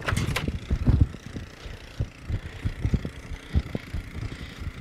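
An ATV engine running as it tows a roping dummy, mixed with irregular low thumps from a loping horse's hooves in arena dirt. A short rush of noise comes right at the start.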